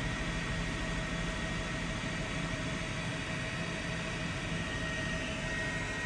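Steady aircraft engine noise, as from a helicopter carrying the aerial camera: an even roar with a constant high whine and a fast low pulsing.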